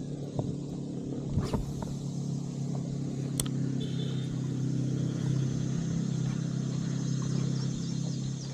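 A steady low engine hum that grows louder toward the middle and fades slightly near the end, with two brief sharp clicks in the first half.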